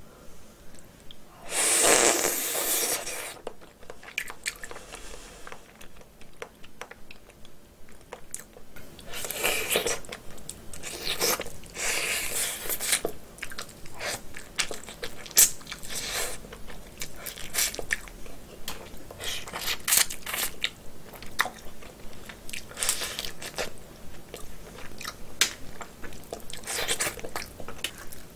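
Close-miked chewing and mouth sounds of someone eating boiled snow crab meat and innards, with many short sharp clicks from handling the crab shell, and a longer, louder burst about two seconds in.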